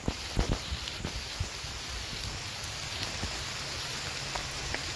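Footsteps on a dirt forest trail, a few thuds of shoes and rustling, over a steady hiss of rain falling on the leaves.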